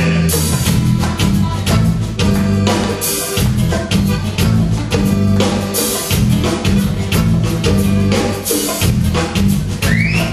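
Live blues-rock band playing an instrumental passage between vocal lines: drum kit keeping a steady beat, bass guitar and strummed acoustic guitar. A high wavering melody line comes in near the end.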